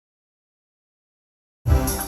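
Silence, then about a second and a half in, electronic dance music with heavy bass beats starts abruptly, played through a 1996 Bose Room Mate powered speaker.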